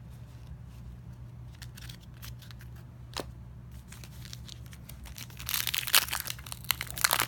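Trading cards handled with a few light clicks, then about five and a half seconds in a plastic card pack wrapper being torn open and crinkled.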